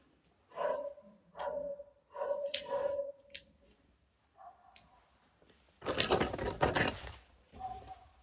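A dog whining in several short, pitched calls, followed about six seconds in by a louder, harsher noisy burst.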